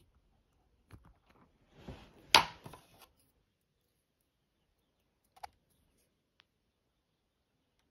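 Scissors and small tools handled at a peeled orange and a plastic syringe: a few soft clicks, then a short rustling scrape with one sharp click about two and a half seconds in, and another click about five and a half seconds in.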